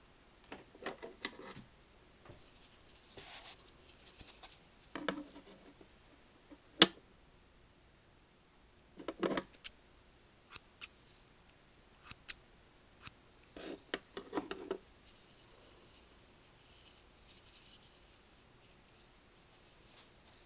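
Small scissors snipping loose wool strands off a needle-felted figure, in several short runs of quick snips with a few single clicks between them. One sharp click about a third of the way through is the loudest, and the snipping stops about three quarters of the way through.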